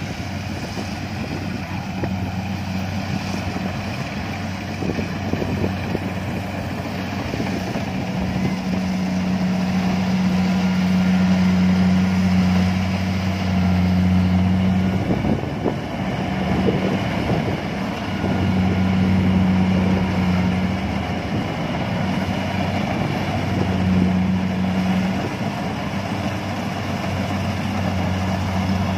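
Kubota DC70 combine harvester running as it cuts rice: a steady diesel engine and machinery drone. A low hum in it comes and goes several times.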